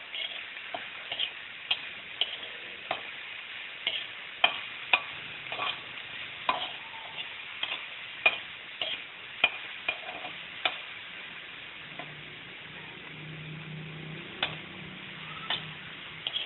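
Chopped meat sizzling in a wok over a gas burner while a metal utensil stirs it, knocking and scraping against the wok about twice a second, then only now and then for the last few seconds.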